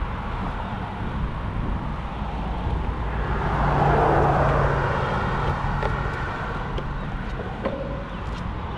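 Wind rushing on a moving microphone over the rumble of small wheels rolling on concrete sidewalk, with a louder swell about three to five seconds in and a few light clicks near the end.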